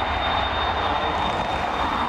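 An airliner's engines running: a steady, noisy rush with low rumble and a thin, steady high whine.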